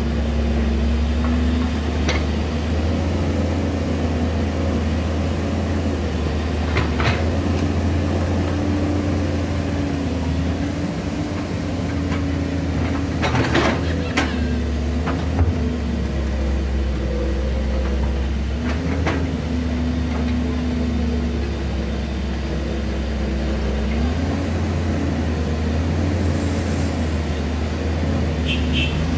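Komatsu PC210 Avance hydraulic excavator's diesel engine running steadily under load, its pitch shifting up and down as the hydraulics work the digging arm, with about five sharp knocks and clanks of the steel bucket on hard, rocky soil.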